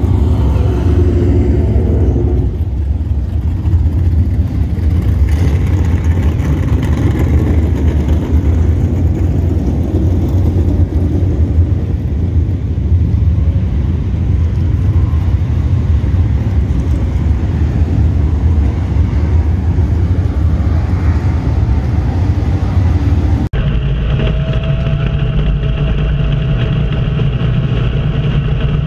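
Dirt modified race car engine running loud and steady, with most of the sound in the low rumble. After a sudden cut about 23 seconds in, an engine is heard from inside the car's cockpit, with a steady whine over the rumble.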